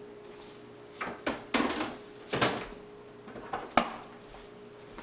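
Refrigerator door being opened and shut as a bowl is put inside: a few knocks and scrapes, then a sharp click near the end as the door closes.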